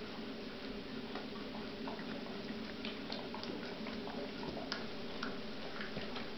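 Yellow flat-coated retriever puppy licking another dog's ear and face: irregular small wet clicks and smacks over a steady background hiss.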